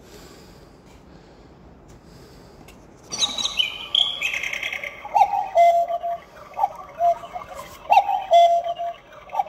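Battery cuckoo clock movement playing its recorded call: about three seconds in, high twittering birdsong starts, then a two-note falling "cu-ckoo" repeats about every second and a half, four times.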